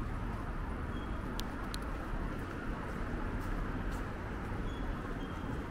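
City street ambience: a steady low rumble of traffic, with a few faint clicks about midway through.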